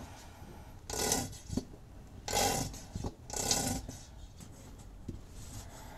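Plastic squeeze bottle of gear oil being squeezed to pump oil into a Toyota 4Runner transfer case fill hole: three short noisy strokes about a second apart, each lasting about half a second.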